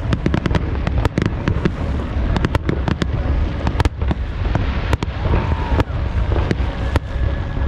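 Fireworks display: a rapid, irregular series of sharp bangs and crackles, several a second, over a continuous deep rumble.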